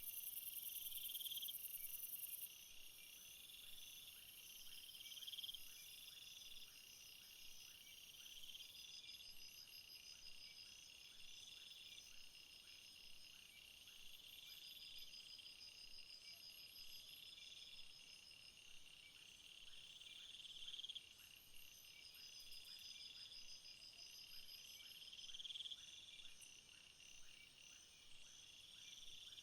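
Crickets and other night insects chirping faintly in several overlapping high-pitched pulsed trills, one repeating about every two seconds. A very high buzzing layer drops out about two seconds in.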